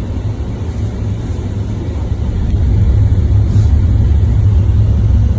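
Low, steady engine and road rumble heard from inside a moving vehicle's cabin, growing louder about halfway through.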